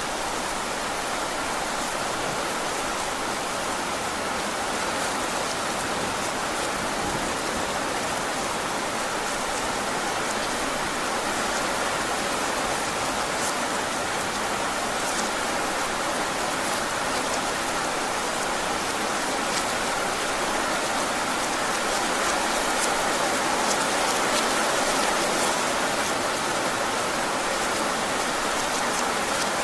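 Heavy rain falling steadily, with scattered sharper drop hits standing out from the hiss.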